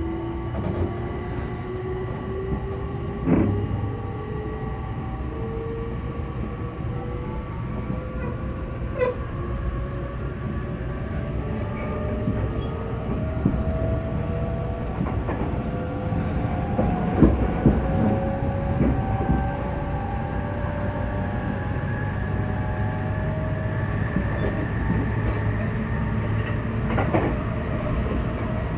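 Running sound of a JR E257 series 0 limited express heard inside the car, its motor whine climbing slowly and steadily in pitch as the train gathers speed. A few sharp knocks from the running gear stand out about 3 s in and between 17 and 19 s in.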